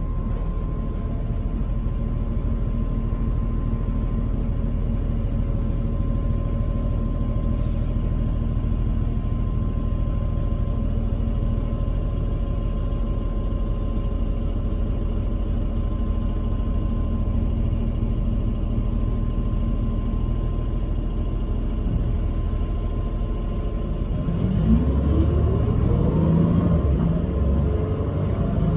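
Cabin sound of a CNG city bus: its Cummins Westport L9N engine runs at a steady pitch with a constant whine. About 24 seconds in, the engine's pitch climbs and the sound grows louder as the bus accelerates.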